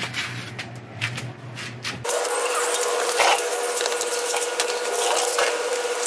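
A few handling clicks and knocks, then from about two seconds in a cordless drill running steadily with an even whine. It is spinning out one of the 10 mm bolts that hold the door handle inside a Silverado door.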